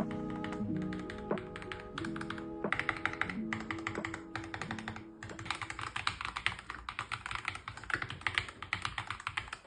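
Fast typing on a Keychron K2 Max mechanical keyboard: a rapid, continuous run of key clicks. Light background music fades out during the first half.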